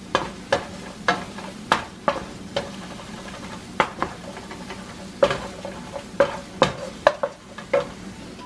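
Wooden spoon stirring scrambled eggs in a nonstick frying pan, knocking against the pan in sharp, irregular taps about twice a second, over a faint steady sizzle from the still-hot pan.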